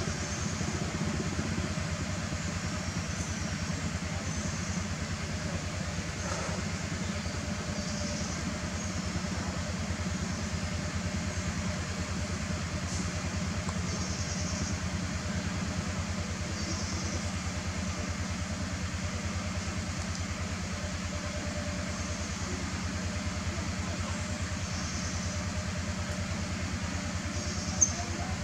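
A steady low engine drone, with one sharp click near the end.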